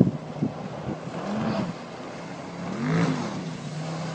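Motorboat engine droning and revving up and down twice as the boat sweeps past throwing spray. A sharp loud thump comes right at the start.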